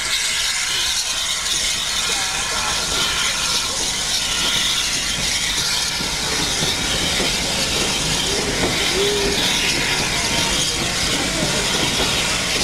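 Steam locomotive standing at a platform, venting steam with a steady hiss.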